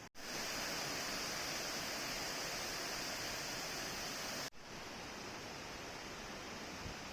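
Steady rushing of the Amedaki waterfall, an even hiss of falling water. A cut about four and a half seconds in leaves it slightly quieter.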